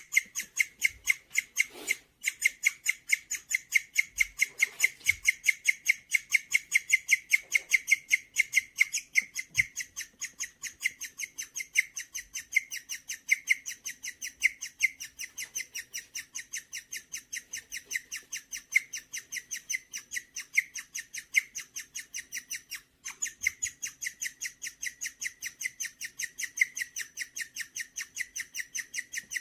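Guinea pig chirping: a long, steady run of rapid, high, bird-like chirps, about four a second, broken only by two brief pauses. The owner takes the chirping for a sign that the guinea pig is content.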